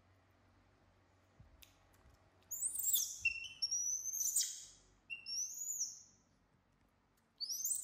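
Baby macaques screaming: four shrill, high-pitched screams starting about two and a half seconds in, the last near the end.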